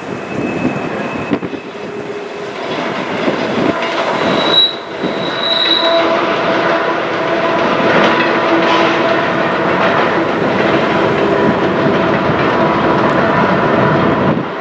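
Freight train passing with steady wheel-on-rail squeal over the rumble and clatter of the cars, building up over the first few seconds and then holding. Two brief higher squeals come about four and a half and five and a half seconds in.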